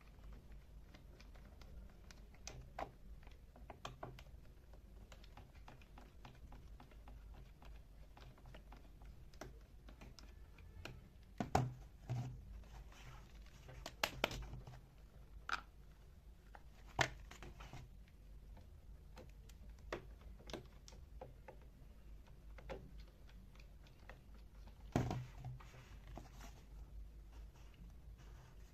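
Faint, scattered small clicks, taps and rattles of a vintage Fein electric drill being taken apart by hand, its housing parts and small tools handled on a bench, with a few louder knocks.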